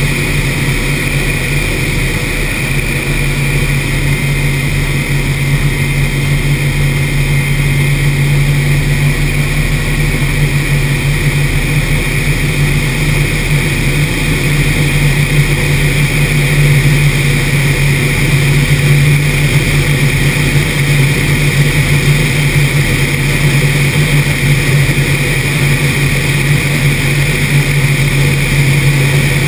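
P-51's piston engine and propeller droning steadily in flight, swelling slightly louder midway.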